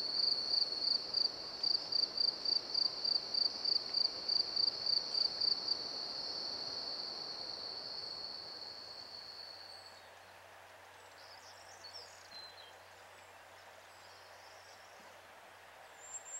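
Crickets chirping: a steady high trill with a pulsing chirp about twice a second over it, fading out about ten seconds in. Faint high bird chirps follow near the end.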